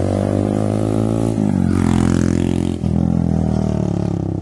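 Single-cylinder engine of a TVS Raider 125 motorcycle running at steady revs through an aftermarket Akrapovic-style exhaust while riding, with a brief shift in engine pitch about a second and a half in and a short dip near three seconds.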